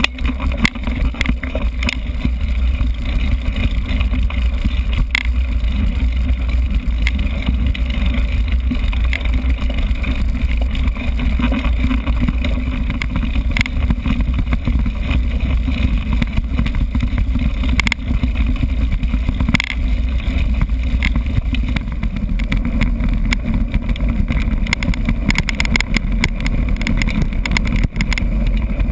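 Riding noise picked up by a mountain-bike-mounted GoPro: a steady low rumble of wind and tyres on a dirt track, with frequent small rattles and knocks from the bike over the rough ground.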